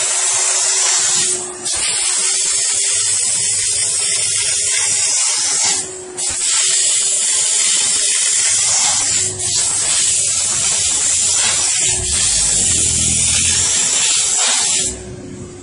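Steam car-wash machine's steam gun hissing in long jets, broken off briefly a few times as the trigger is let go and stopping near the end, over a steady low hum from the machine.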